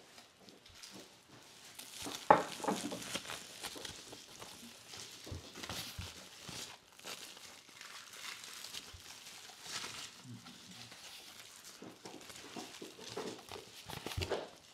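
Crinkling and rustling of a cardboard product box and its packaging being handled and opened, with a sharp knock about two seconds in.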